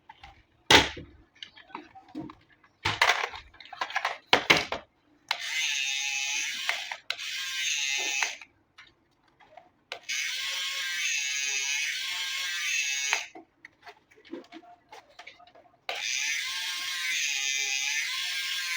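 Clicks and knocks of the plastic toy being handled, then three runs of about three seconds each of a steady buzzing whir with a wavering tone, from the 1:14 scale RC drift car being run.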